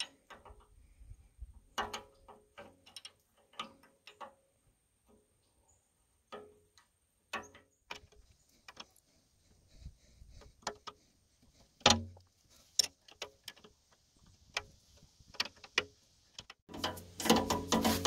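Metal wrenches clicking and ticking against the nut at the base of a backhoe joystick control as it is tightened, the loose nut that was letting the joystick flop. The clicks come irregularly, with one louder clank about two-thirds of the way through. Music comes in near the end.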